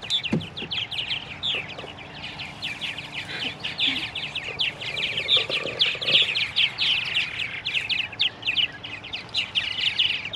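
Purple martins chirping: a fast, unbroken run of short, high chirps.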